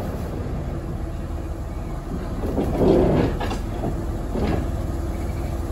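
Small diesel shunting locomotive running slowly as it approaches, its engine throbbing steadily. The noise swells about halfway through, with two short clacks a second apart soon after.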